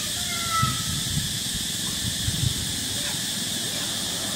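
Steady high outdoor hiss, with a few soft low thumps in the first half and faint short chirps about half a second in.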